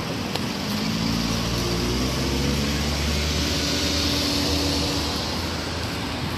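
A car driving past: its engine hum and tyre noise swell from about a second in, are loudest around four seconds in, and fade near the end.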